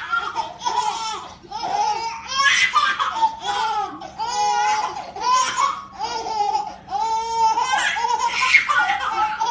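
Babies laughing in a long run of short, high-pitched bursts, about two a second.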